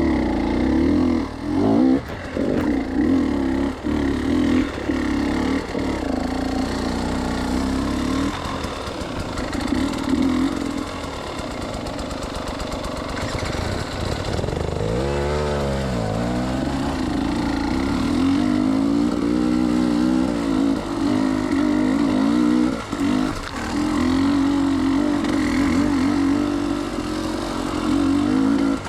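Enduro dirt bike engine running and revving, its pitch wavering with the throttle; about halfway through the revs drop and climb again.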